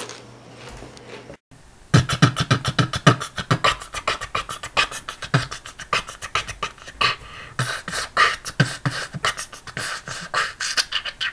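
Fast, busy percussive music with beatbox-like hits and clicks several times a second, starting abruptly about two seconds in after a brief silence. Before it, faint room sound.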